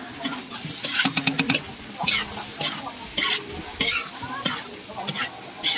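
A perforated metal spatula scraping and knocking against a wok as chicken pieces and sliced mushrooms are stirred, in strokes about every half second, with a quick run of taps about a second in. A steady sizzle of frying runs underneath.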